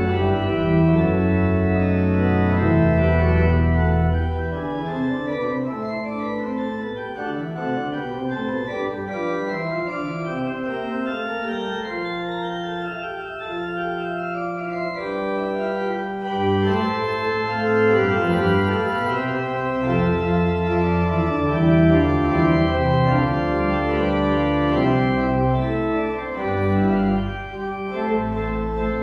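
Organ music: slow, sustained chords. Deep pedal bass notes sound under them at the start, drop out for a softer middle passage, and come back fuller about halfway through.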